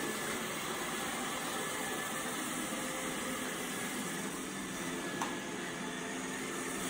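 iRobot Roomba i7+ robot vacuum running steadily while it cleans, a constant motor and brush whir with a faint hum, and a light click about five seconds in.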